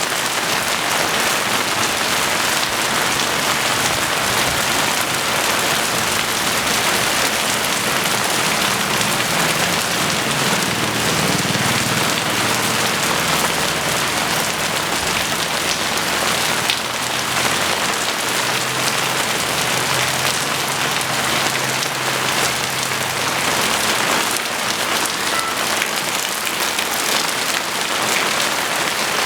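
Heavy rain falling steadily, with a low rumble through the middle stretch and a single sharp click about two-thirds of the way in.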